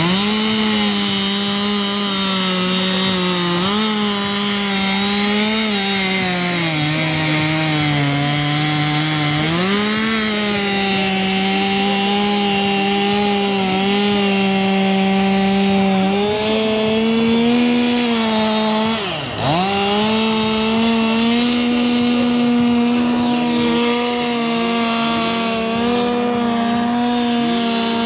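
STIHL chainsaw cutting into the end of a log at high revs, its engine note sagging under load for a few seconds about a quarter of the way in, then recovering. The note dips sharply and briefly about two-thirds of the way through.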